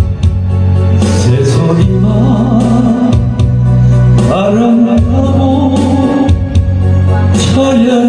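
A man singing a Korean trot song into a handheld microphone over a karaoke-style backing track with bass and a steady drum beat.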